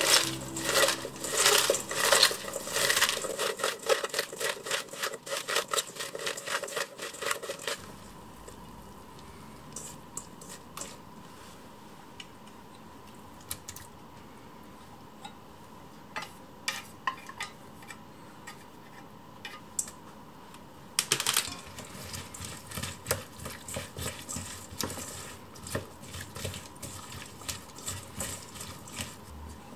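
Hands squeezing and tossing chopped cabbage in a stainless steel bowl, with wet rustling and knocks against the metal. This gives way to sparse small clicks as a small can is handled and emptied into the bowl. After a louder clatter about two-thirds of the way in, chopsticks stir the mixture, clicking against the side of the bowl.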